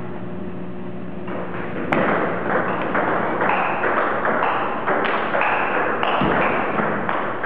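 Table tennis rally: the celluloid ball knocking off paddles and the table, about two hits a second, each with a short ring in the hall, starting with a sharp crack about two seconds in.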